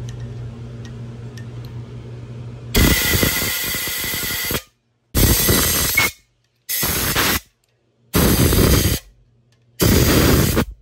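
A steady low hum, then about three seconds in, five blasts of compressed air from a blow gun held into the head-bolt holes of a Toyota 2JZ cast-iron engine block. The first blast lasts about two seconds and the rest are shorter, with short gaps between them.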